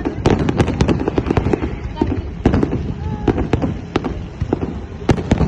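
Fireworks going off in quick succession, with many overlapping sharp bangs and crackles. Voices can be heard among them.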